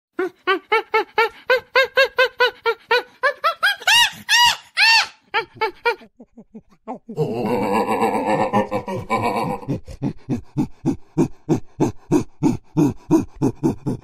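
Chimpanzee calls: a rapid run of rhythmic pitched hoots, about four a second, climbing in pitch into a few high arched screams about four to five seconds in. After a short pause comes a harsh, dense call lasting about two seconds, then steady rhythmic panting calls, about three to four a second.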